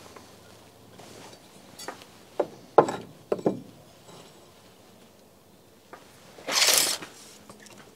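Lumber being handled and fitted: a few light wooden knocks close together, then a brief scraping rub near the end, the loudest sound, as a board or square slides against the wood.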